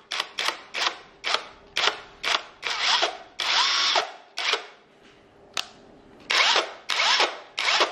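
Cordless impact wrench run with no load in quick short trigger blips, the motor whirring up and winding down each time. There is a longer run about three and a half seconds in, a pause, then another quick string of short blips.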